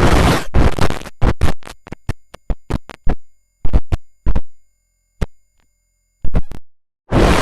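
Stuttering noise sound effect: bursts of harsh noise that start and stop abruptly, with a run of short sharp clicks between them and a stretch of dead silence about five to six seconds in.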